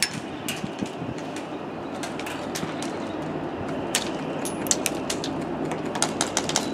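Airsoft guns firing as sharp snapping shots: a few single shots, then a quick string of shots near the end, over steady background noise.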